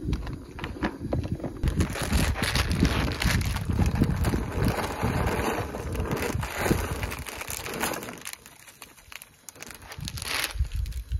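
Wind buffeting the microphone in uneven gusts, with a plastic instant-ramen packet crinkling as it is handled. The rustling is strongest in the middle of the stretch and again briefly near the end.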